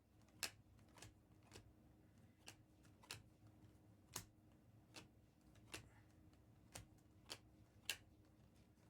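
Faint, irregular clicks of stiff Topps Chrome trading cards being flipped one by one through a stack, about a dozen in all.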